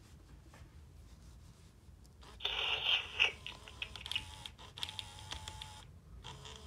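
A Hasbro Furby Baby toy's internal motor and gears running: a grinding whirr of about a second some two seconds in, followed by scattered small clicks as its eyes and ears move.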